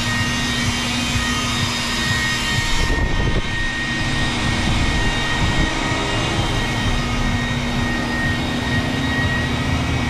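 Handheld electric rotary polisher with a foam pad running steadily against a car windshield, a constant high whine over a rushing motor hum, as scratches are ground out of the glass. The upper hiss eases slightly about three seconds in.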